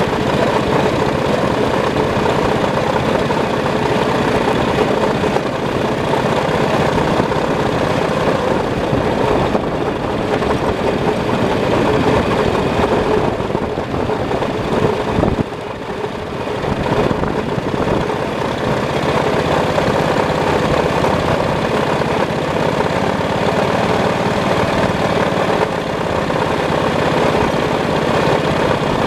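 A miniature ride-on locomotive running steadily along its track: a continuous mechanical running noise with a steady tone in it, dipping briefly about fifteen seconds in.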